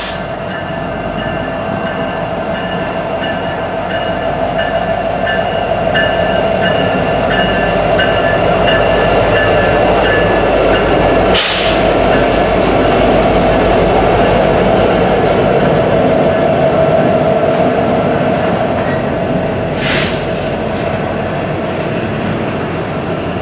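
Coal train hopper cars rolling past on steel wheels, with a steady squeal from the wheels on the rail over the clatter of the train. A sharp bang comes about halfway through and another near the end.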